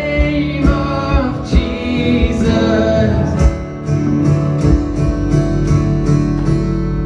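Live worship band playing: singing over strummed acoustic guitar, bass, keyboard and drums. The drum beat stops about two-thirds of the way in, leaving strummed guitar and held chords ringing.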